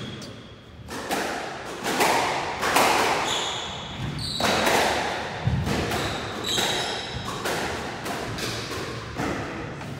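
Squash rally: the ball is struck by rackets and smacks off the walls about once a second, each hit echoing in the enclosed court, with a few brief high squeaks of sneakers on the wooden floor.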